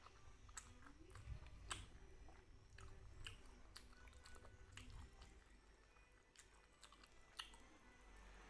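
Faint, close-miked chewing of chewy beef-skin kikil, with irregular soft mouth clicks and smacks.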